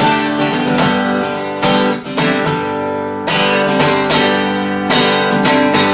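Acoustic guitar strumming chords: the instrumental intro of a folk song, before the vocals come in.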